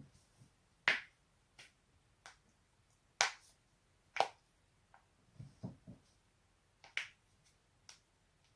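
A person's joints cracking: a series of sharp pops, about ten in all, the loudest about a second in and around three, four and seven seconds in. Between five and six seconds there is a quick cluster of duller, lower knocks.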